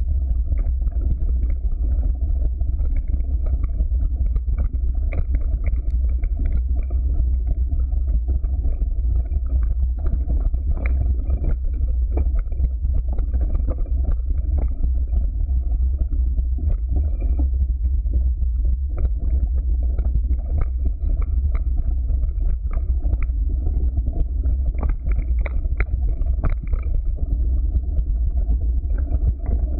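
Mountain bike riding fast down a rough dirt trail: a steady low rumble of wind and ride vibration, with frequent knocks and rattles as the tyres run over rocks, roots and dry leaves.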